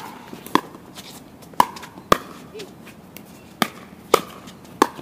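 Pickleball rally: paddles striking the plastic ball with sharp pops, about six in all at irregular intervals.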